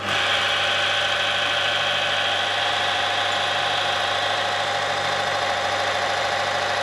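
Timken-type friction tester running steadily, its motor spinning the steel ring against the test block in oil dosed with IF-WS2 nano additive, under low friction. A steady hum with a higher whine that starts abruptly and holds an even level.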